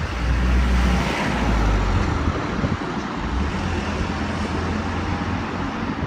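A vehicle engine running with a steady low rumble, mixed with general road-traffic noise.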